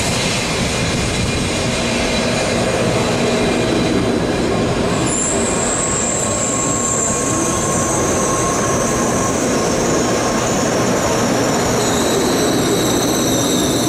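N700A Shinkansen train running slowly along the platform, with steady rolling and running noise. A thin, high brake squeal sets in about five seconds in and slowly falls in pitch as the train slows, and a second, lower squeal joins near the end.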